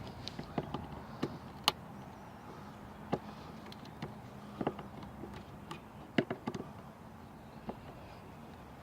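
Phillips screwdriver of a Leatherman Super Tool 300 multitool turning a screw by hand: irregular sharp clicks and scrapes of metal on the screw.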